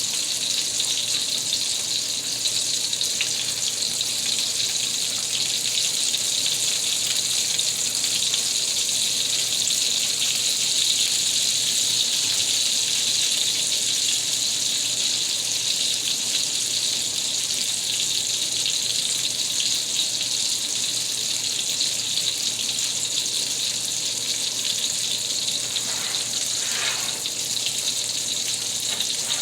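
Ground-beef Salisbury steak patties sizzling steadily as they sear in mushroom butter in a hot pan, browning on the outside.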